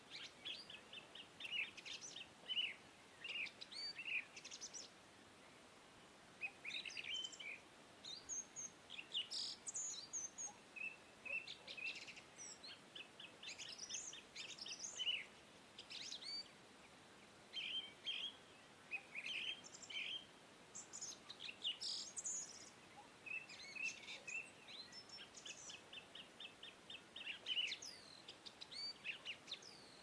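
Birds chirping and singing: phrases of quick trilled notes and short high whistles, separated by pauses of a second or two.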